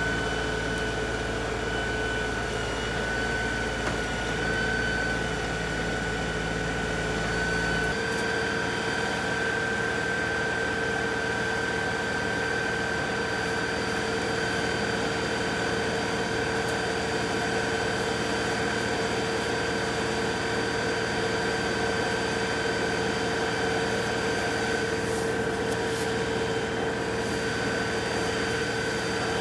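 Compact diesel tractor engine running steadily with a constant whine. About eight seconds in, the low rumble drops away and the pitch shifts slightly.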